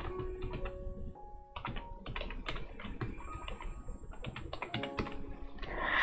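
Computer keyboard typing: a run of quick key clicks with a short pause about a second in. Soft background music with held notes plays under it, and a brief rushing noise near the end is the loudest sound.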